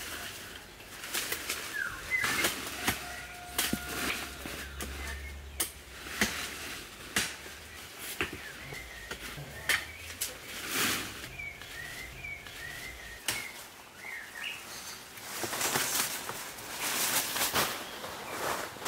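Leafy mulberry branches rustling and swishing as they are pulled down and shaken, with sharp clicks and cracks of twigs and wood in among the rustle. Small birds chirp faintly now and then.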